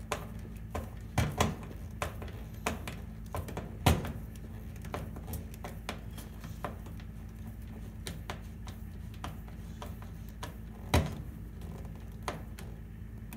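Scattered clicks and knocks of a hand screwdriver turning a metal terminal screw on an electric range's terminal block, snugging down the range cord's neutral wire, with a steady low hum underneath. The sharpest knocks come about a second in, at about four seconds and near eleven seconds.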